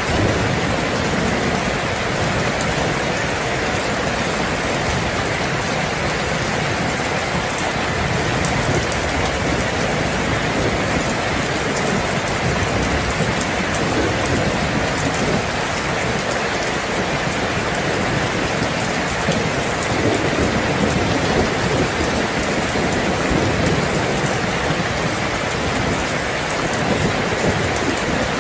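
Heavy rain falling steadily in a thunderstorm, with a low rumble of thunder underneath.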